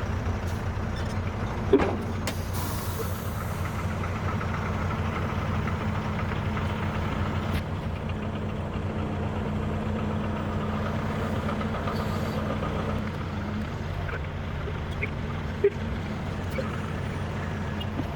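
Gravel truck's diesel engine idling steadily, with a short air-brake hiss about two and a half seconds in and a couple of brief sharp knocks.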